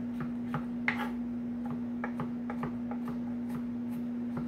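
Kitchen knife chopping garlic on a bamboo cutting board: quick, even blade strikes about three to four a second, one of them louder about a second in, over a steady low hum.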